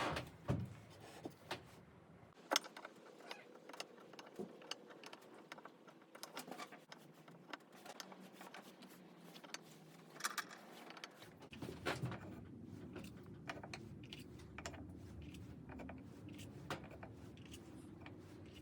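Scattered light clicks and taps of small metal objects being handled, like drill bits clinking against each other and against wood. A low steady hum joins about eleven seconds in.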